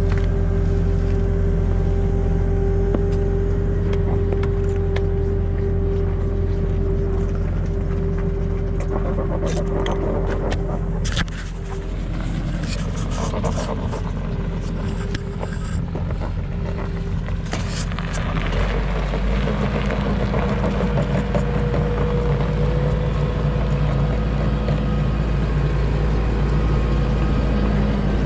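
Skid steer engine running steadily under load, with knocks and scrapes of metal and concrete in the middle as the old cattle guard is worked free. The engine note drops and changes pitch about two-thirds of the way through.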